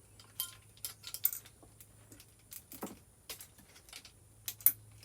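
Metal tools and small metal parts being handled: scattered sharp clicks and clinks at an uneven pace, the loudest one near the end, over a faint steady hum.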